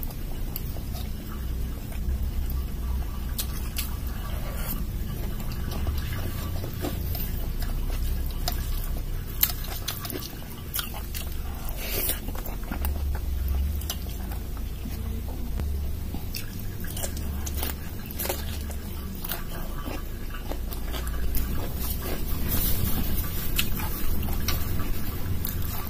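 Close-miked chewing and wet mouth sounds of a person eating dal and rice by hand, with many scattered sharp smacking clicks over a low steady hum.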